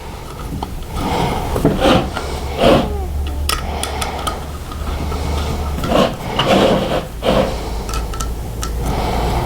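Screws being started into the end cap of a Model T Ford generator by hand, with metal parts scraping and clinking irregularly and several sharp clicks.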